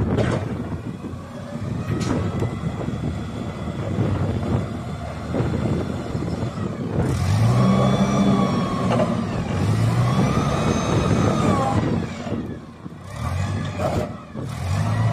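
Clark GPM 25 forklift's LPG engine running, with a rough rumble at first, then revving up and back down twice about halfway through and a few shorter revs near the end.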